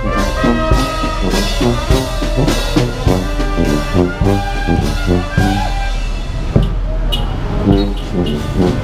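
Marching band playing as it passes: a sousaphone bass line stepping under saxophones and brass horns, with bass drum and cymbals keeping the beat. The high horn notes thin out about two thirds of the way through, leaving the bass line and drums.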